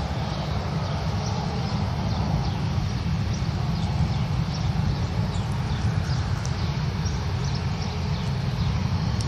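Steady, fluttering low rumble of wind on the microphone, with many short, high chirps of small birds scattered throughout.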